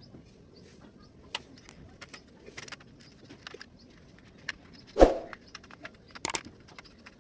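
Scattered small clicks and taps of plastic and metal laptop parts being handled during disassembly, with one louder knock about five seconds in.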